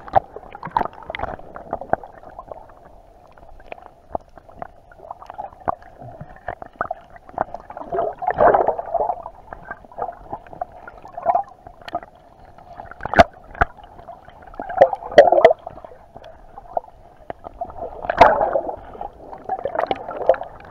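Water heard from an action camera held beneath the surface: a muffled, steady gurgle with many short sharp clicks and knocks, and three louder sloshing swells.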